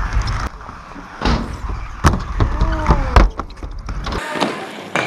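Inline skates rolling on a concrete skatepark, a deep rumble close to the ground, broken by about five sharp clacks of the skates striking ledges and rails. The rumble cuts off about four seconds in.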